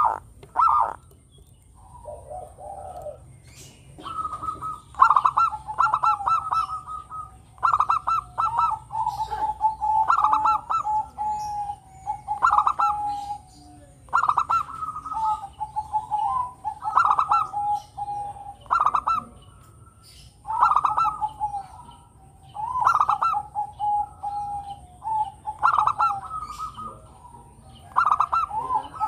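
Zebra dove (local Javanese perkutut) singing its cooing song: repeated phrases of quick staccato coos, about one phrase every two to three seconds, resuming after a short pause near the start.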